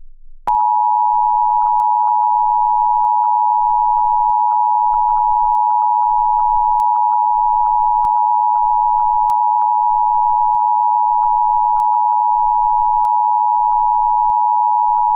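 Emergency Alert System attention signal: a steady electronic tone that starts about half a second in and holds unbroken at one pitch, with faint clicks scattered through it.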